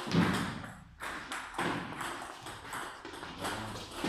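Table tennis rally: the celluloid ball clicks off rubber paddles and bounces on the table in a backspin drill, a sharp tap roughly every second.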